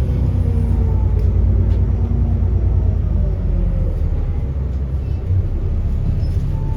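Alexander Dennis Enviro400 double-decker bus running, with a steady deep engine rumble and a whine that slowly falls in pitch over the first few seconds as it eases off.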